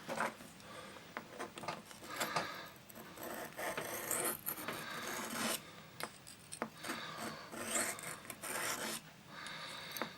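Penknife blade being stroked across a small water-wetted whetstone: an uneven run of gritty scraping strokes with light clicks.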